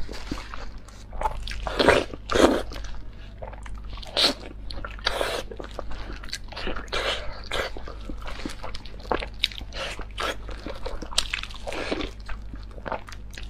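Close-miked eating: biting and chewing the meat and tendon off a braised beef knee bone, in irregular short bursts, loudest about two seconds in.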